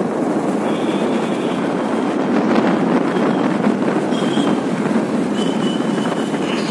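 Wind rushing over the microphone of a moving motorcycle, mixed with the bike's running and road noise as a steady rough rush. A few faint high-pitched thin tones come and go, the longest near the end.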